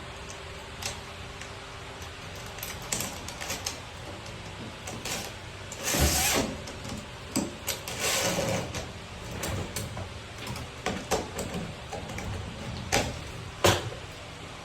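Irregular clicks, knocks and scraping as a shutter motor cable is pulled through its termination block and tightened down. The loudest scrapes come about 6 and 8 seconds in, and there is a sharp knock near the end.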